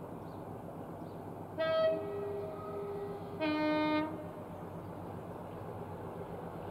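Class 37 diesel locomotive's two-tone horn sounding in the distance: a high note about a second and a half in, then a lower note just under two seconds later, over a steady background rumble.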